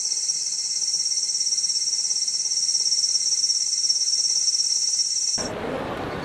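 Cicadas buzzing in a steady, high, sizzling chorus that cuts off sharply about five seconds in, giving way to a duller rushing ambience.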